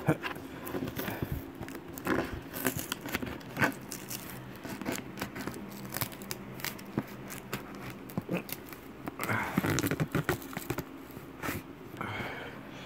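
Close rustling, scraping and tearing of sticky packing tape being picked and pulled at on a cardboard box, with scattered clicks and handling noise close to the microphone.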